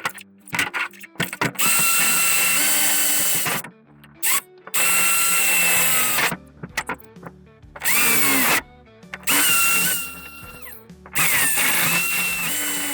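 A power drill bores holes through the sheet-metal toolbox drawer in about five bursts of a second or two each. The whine rises as the drill spins up and falls off as it is released between holes.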